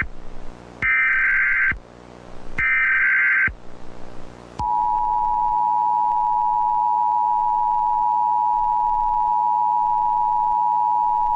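Emergency Alert System tones: two more screeching digital header bursts of about a second each, then about four and a half seconds in the steady two-tone attention signal starts and holds. The sequence signals the start of an emergency alert broadcast.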